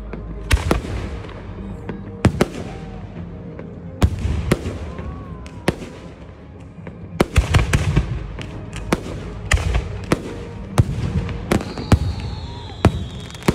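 Aerial firework shells bursting overhead in a run of sharp bangs over a low rumble, the bangs crowding together about seven seconds in.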